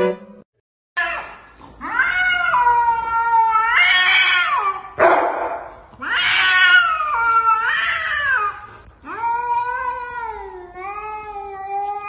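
A cat yowling at another cat: a string of long, drawn-out caterwauls that rise and fall in pitch, starting about a second in, with a short hiss about five seconds in.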